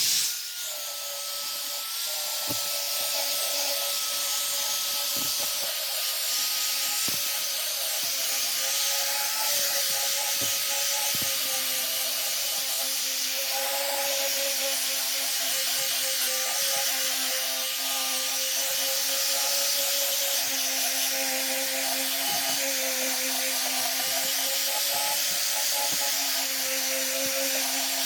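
Electric sander running steadily while sanding a 3/4-inch pressure-treated plywood board, a motor whine over a sanding hiss that sags slightly in pitch now and then as the tool is pressed.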